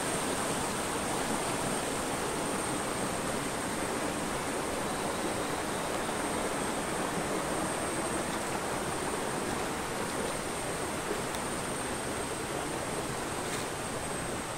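Steady rushing of a shallow rocky forest stream running over small cascades, with a thin, steady high tone above it.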